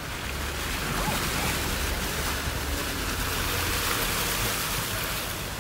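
Steady rushing hiss of water and spray from a car's tyres driving through a flooded, rain-wet street, over a low road rumble.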